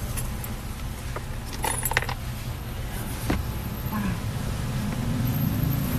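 A few light metallic jingles and clicks, clustered about two seconds in with another a second later, over a steady low rumble.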